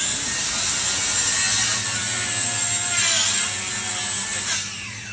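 A high-speed electric power tool spins up to a high whine, runs for about four and a half seconds with a slight dip in pitch a little past the middle, then winds down near the end.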